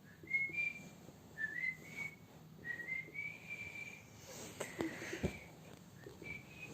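A person whistling through the lips: a string of short notes, each gliding upward. A few soft knocks and rustles come just past the middle.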